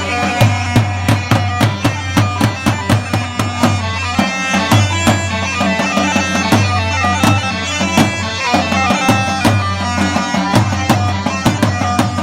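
Choobi dance music: a reedy, pipe-like melody over a fast, steady beat of drums and a heavy bass.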